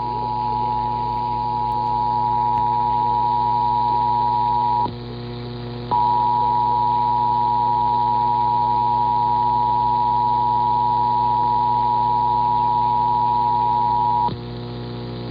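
Emergency Alert System attention signal, the steady two-tone alarm (853 and 960 Hz) that opens a Required Monthly Test. It breaks off about five seconds in, starts again a second later, and breaks off once more near the end. A steady low hum runs underneath.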